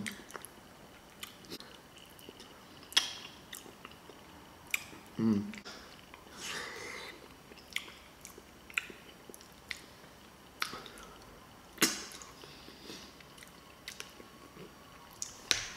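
Close-miked chewing of soft, creamy baked macaroni and cheese: wet mouth smacks and scattered sharp clicks, with a short hummed "mm" about five seconds in.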